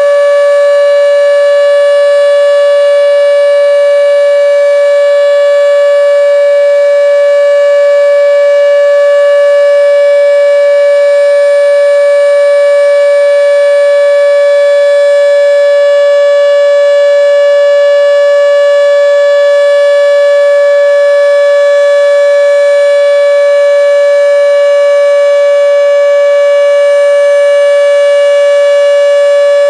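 Model 5 outdoor warning siren sounding its steady Alert tone: one loud held pitch that neither rises nor falls.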